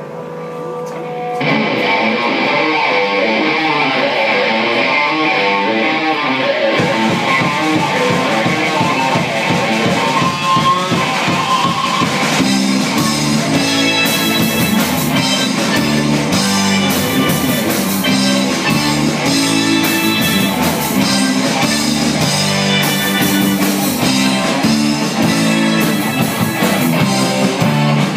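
Live amplified rock band playing the opening of a song. Guitars lead a thinner intro, and the full band with drum kit and cymbals comes in heavily about twelve seconds in, recorded from the audience in a hall.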